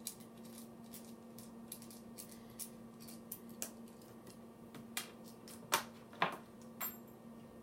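Small irregular metal clicks and ticks of a T8 Torx driver and knife parts being handled while screws are backed out of a pocket knife, with two sharper clinks about six seconds in.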